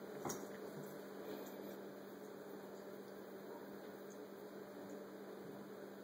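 A steady low hum over faint room hiss, with a single faint click shortly after the start.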